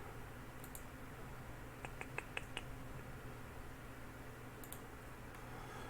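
Low room hum with a quick run of about five faint, light clicks about two seconds in, and a few fainter ticks around them.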